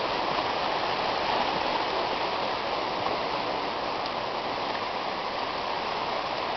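Floodwater of a creek in spate rushing past, a steady even rush of moving water. The creek is running far above its normal level, five feet deep over a fence line.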